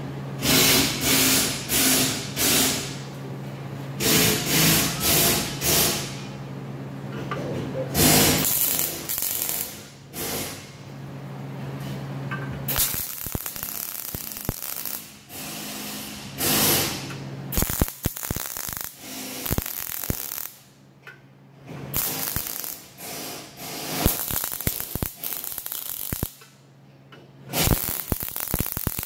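Lincoln Power MIG 200 wire-feed welder welding steel bars onto a combine's key stock grate: the arc crackles in many short bursts, some under a second and some about two seconds long, with brief pauses between them. A steady low hum runs underneath.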